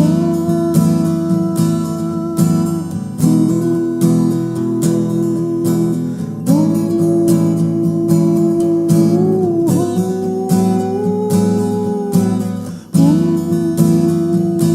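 Acoustic guitar strummed in a steady rhythm, with long held melody notes that slide between pitches over the chords, in an instrumental passage of a song.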